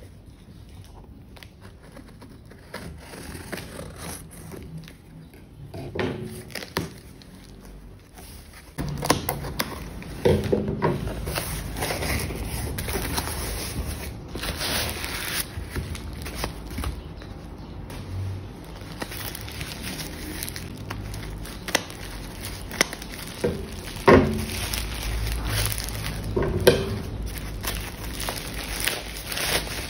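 Scissors scraping and cutting through packing tape on a cardboard box, then louder crinkling of plastic bubble-wrap packaging being handled and cut open, starting about nine seconds in, with scattered sharp clicks.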